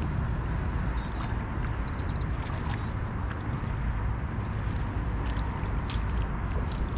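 Wind buffeting the microphone in a steady low rumble, with a few faint high bird chirps between about one and three seconds in.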